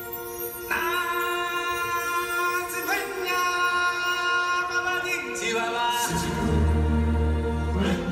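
Stage-show music: voices singing long held notes that shift to new chords every couple of seconds. Deep low notes come in about six seconds in.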